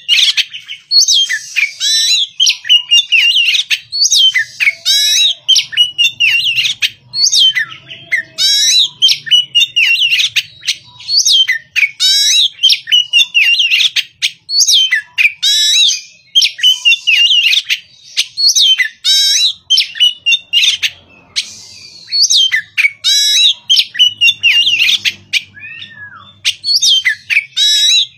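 Oriental magpie-robin (kacer), an untrained 'bahan' bird, singing its morning song: loud, varied whistled and chattering phrases with sliding notes, one after another every second or so with brief pauses between them.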